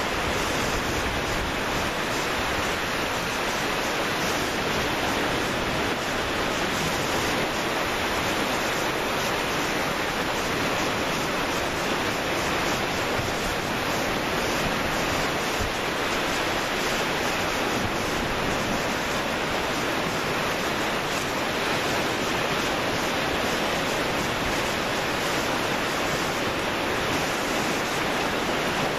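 Sea surf washing in, a steady rushing hiss with no separate wave breaks standing out.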